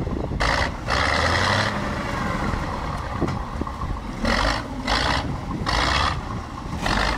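An all-terrain vehicle's engine runs low and steady as it wades through slushy, ice-choked water. A rushing noise swells in several short surges over it.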